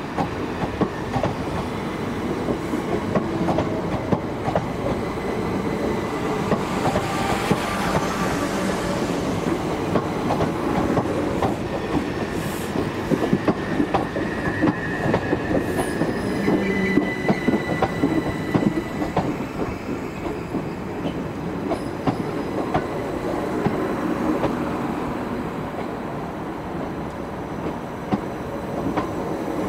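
Southern Class 377 Electrostar electric train running slowly alongside the platform, its wheels clicking steadily over the rail joints. A faint high wheel squeal comes in about halfway through.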